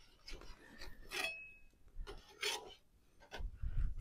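A metal spoon scraping and clinking inside a small metal pot as sauce is scooped out. A few short scrapes, one with a brief metallic ring about a second in, and a low rumble near the end.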